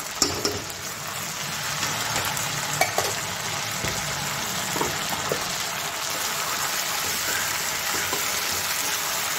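Elephant apple slices frying in oil in a kadai with a steady sizzle while a steel spatula stirs them, with a few short scrapes and knocks against the pan.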